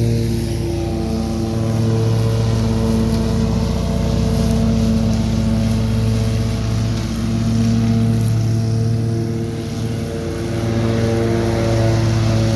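Scag Tiger Cat II EFI zero-turn mower running at a steady engine speed while mowing. Its sound swells and fades a few times as the mower moves across the lawn.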